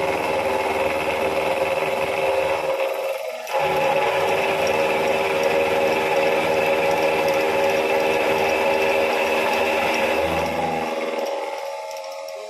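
Benchtop mini milling machine running with a steady motor whine while cutting down a metal part. The sound dips briefly about three seconds in, runs on, then winds down near the end.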